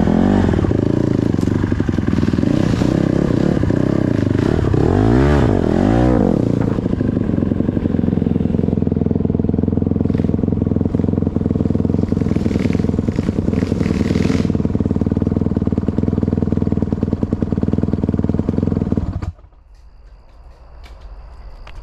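Dirt bike engine running on a trail, revving up and down twice a few seconds in, then holding a steady pitch. About three seconds before the end it cuts off abruptly.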